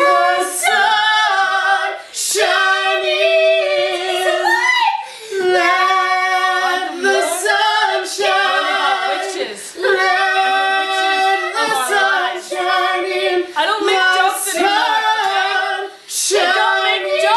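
Women singing together, holding long notes between short breaths.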